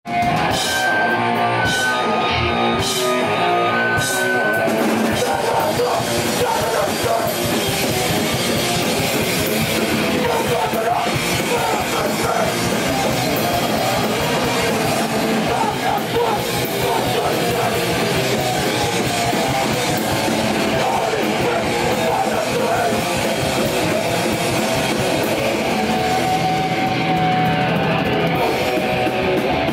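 Hardcore punk band playing live: distorted electric guitar, bass and drum kit at full volume. The first few seconds hold sparse single notes and separate drum hits before the whole band comes in about five seconds in.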